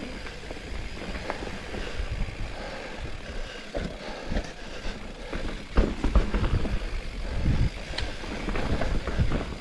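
Turbo Levo electric mountain bike riding a dirt trail: tyre rumble with irregular rattles and knocks over bumps, a few louder knocks in the second half.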